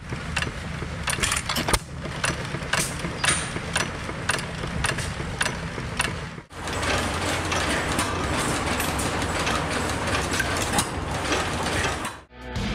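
Antique stationary gas engine running, a steady low chug under a string of sharp mechanical clicks from its valve gear, briefly dropping out about halfway.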